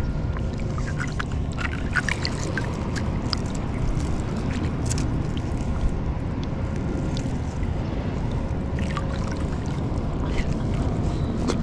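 Steady low rumble of wind and water on the action-camera microphone, with scattered small clicks and drips as a freshly caught squid is handled over the water.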